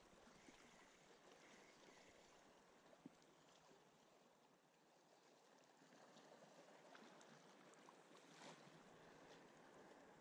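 Faint, steady wash of sea water lapping against shore rocks, with a few light clicks and a slightly louder rush of water about eight seconds in.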